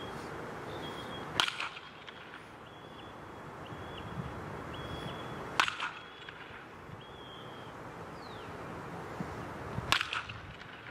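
A baseball bat hitting three pitched balls about four seconds apart, each a sharp crack with a short ring after it.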